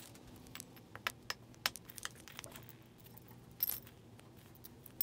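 Faint, scattered metallic clicks and clinks of steel bolts, nuts and washers being picked up and handled during hardware assembly, with a brief jingle about three and a half seconds in.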